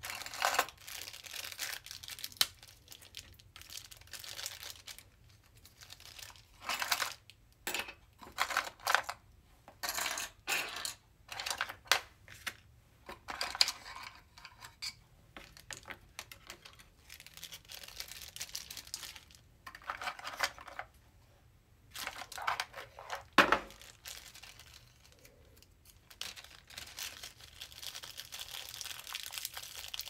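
Diamond painting supplies being handled on a desk: small plastic drill containers in a wooden box, drill pens and plastic trays picked up and set down. It comes as a string of short, irregular rattles, clicks and rustles, with one sharp click a little past the middle.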